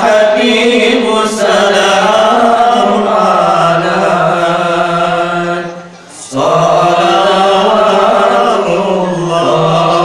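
A group of voices chanting a sholawat, an Islamic devotional song praising the Prophet, in long held notes, with one brief break about six seconds in before the chant starts again.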